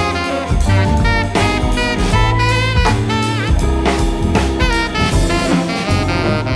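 Instrumental jazz-style music: a horn melody with bending notes over drums and bass.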